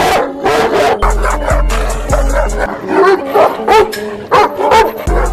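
A large dog barking loudly and repeatedly, about two barks a second, over music with deep, steady bass notes.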